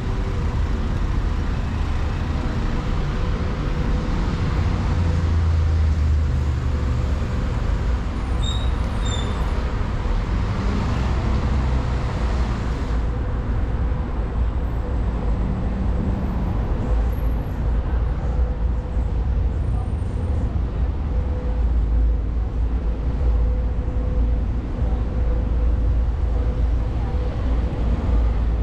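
Road traffic along a busy city street: cars and buses running past in a continuous low rumble, with a few brief high squeaks about a third of the way in.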